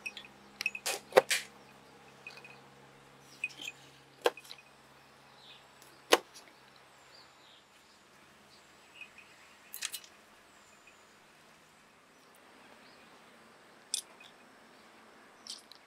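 Kitchen knife cutting small green limes on a wooden cutting board: sharp knocks of the blade striking the board, a quick group of three about a second in, then single knocks every few seconds.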